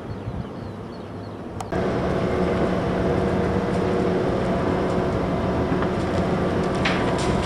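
O&K bucket-wheel excavator 258 at work. At first it is a low distant rumble; from about two seconds in, close up, it becomes a loud, steady machine drone with a hum of several steady tones from its drive machinery. A few sharp crackles and clatters come near the end.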